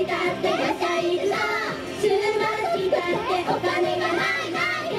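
Young female idol group singing a J-pop song into handheld microphones over a recorded backing track.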